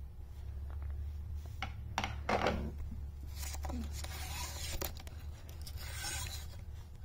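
Packaging rustling and tearing as the sections of a fly rod are unpacked by hand, with a few sharp clicks about two seconds in. A steady low hum runs underneath.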